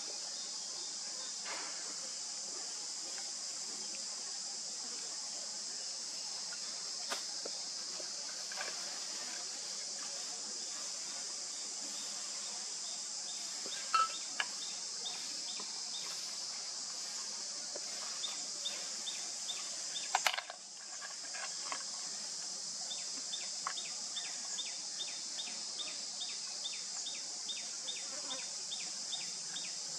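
A steady, high-pitched drone of insects. A few sharp clicks come around the middle, and in the last third a run of short chirps repeats about twice a second.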